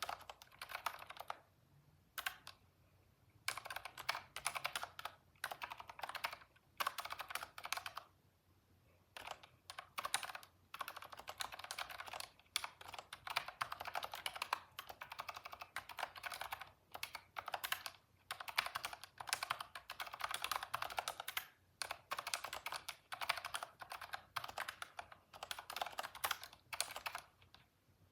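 Computer keyboard typing in fast runs of keystrokes, broken every few seconds by short pauses.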